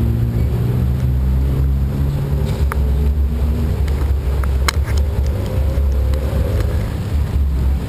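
Busy city-intersection road traffic: car and taxi engines running with a constant low rumble. One engine tone fades out a few seconds in, and another rises in pitch in the middle as a vehicle speeds up through the junction. A couple of sharp clicks can be heard.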